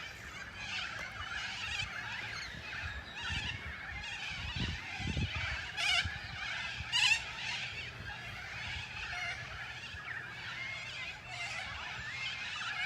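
Outdoor nature ambience: a steady insect-like hum with short bird calls scattered through it.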